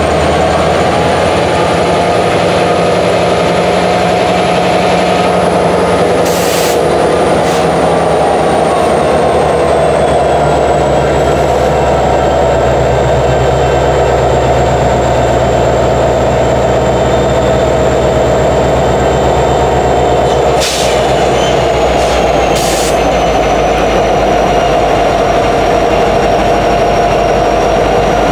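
EMD 16-710 two-stroke diesel prime mover of an SD70ACe locomotive running steadily, its low tones shifting in pitch a few times, under a high whine that drifts slowly up and down. A few brief clicks come about a quarter of the way in and again about three quarters in.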